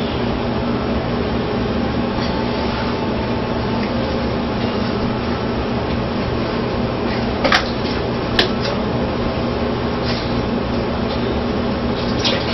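Steady mechanical hum, like a fan or appliance motor running, with two short sharp clicks about halfway through.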